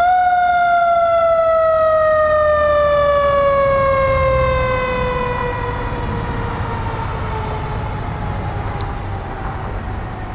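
Fire engine siren on a 2018 Spartan Gladiator pumper, falling in pitch in one long, slow wail that grows fainter as the truck pulls away, over the low rumble of the truck's engine.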